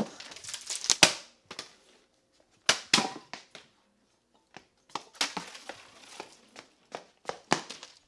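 A plastic water bottle clattering on a concrete floor: a string of sharp knocks and rattles, the loudest about a second in, with rustling of the camera being handled between them.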